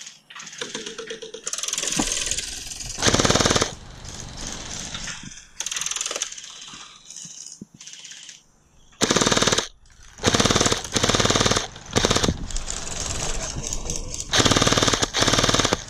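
Electric gel blaster firing in several short full-auto bursts, a rapid mechanical rattle of the motor and gearbox cycling.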